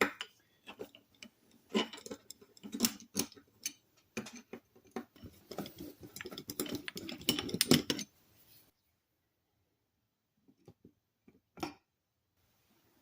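Sargent 409C hand plane being taken apart, the frog removed from the cast-iron body: a busy run of small metal clicks, taps and scrapes for about eight seconds, then a couple of isolated clicks.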